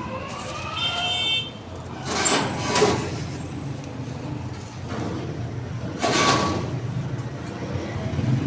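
Busy street traffic noise: vehicle engines running steadily, with a rising pitched tone in the first second and two short, loud hissing bursts, about two seconds in and about six seconds in.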